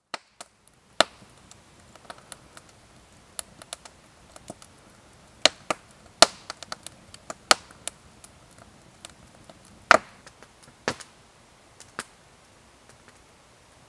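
Wood campfire crackling, with irregular sharp pops and snaps over a faint hiss. The loudest pops come about six and ten seconds in.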